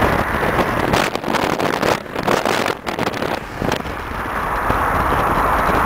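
Ford Galaxie cars driving in a convoy: engines running and passing, with wind buffeting the microphone. The sound briefly drops out twice, about two and three seconds in.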